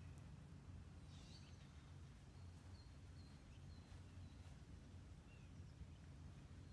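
Near silence: a faint, steady low outdoor rumble with a few faint bird chirps.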